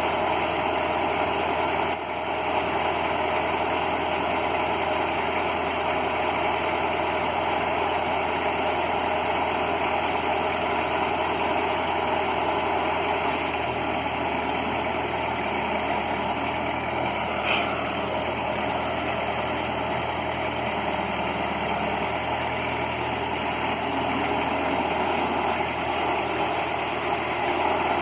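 Portable band sawmill's engine running steadily at a constant speed.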